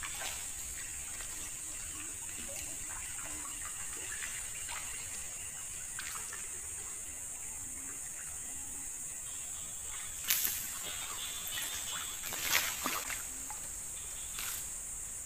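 Insects buzzing in a steady high drone, with light clicks as a frog lure is worked across the water. About ten seconds in a sudden loud splash as a snakehead strikes the surface lure, then more splashing a couple of seconds later as the hooked fish thrashes.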